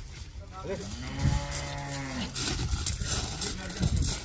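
A cow moos once, a single long call of about a second and a half starting near the start of the second second. A low thump comes near the end.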